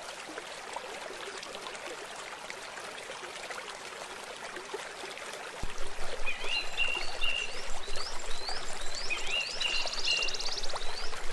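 Shallow river water running over a weir, a steady rushing hiss. About halfway through the rush gets louder, and a bird starts calling over it in repeated phrases of short rising chirps and held whistled notes.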